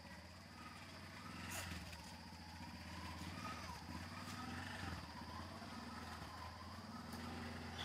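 A steady low hum, with faint gliding calls above it.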